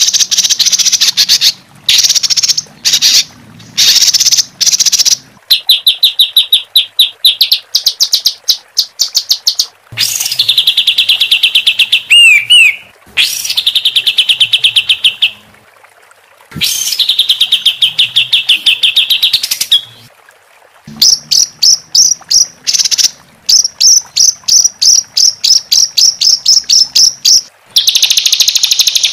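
Songbird masteran (training) recording of harsh, rapid-fire trills and rattles. The phrases repeat one after another with short gaps, some high and fine, some lower and fuller, and a couple of quick whistled swoops come in the middle.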